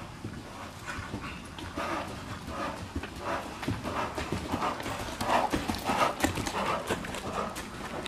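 Hoofbeats of a ridden dressage horse working on the sand footing of an indoor arena, in a steady even rhythm that grows louder past the middle as the horse comes close.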